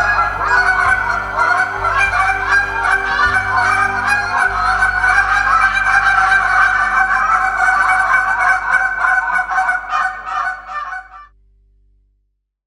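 A team of callers blowing goose calls together in a competition routine, a dense run of overlapping honks. The calling stops abruptly about eleven seconds in.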